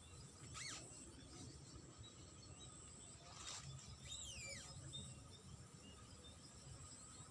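Faint outdoor ambience with bird calls. There are two quick downward-sliding whistled calls, one about half a second in and one a little past the middle. Behind them runs a steady high-pitched insect drone.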